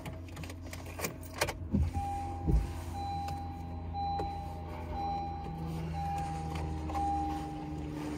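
Honda Civic's dashboard warning chime beeping, six long beeps in a row about one a second, as the car's power is switched on. A few clicks and knocks of handling come before it.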